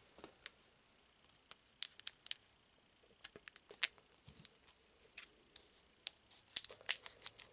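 Trading cards and a foil booster pack being handled: faint scattered light clicks and crinkles, growing busier near the end.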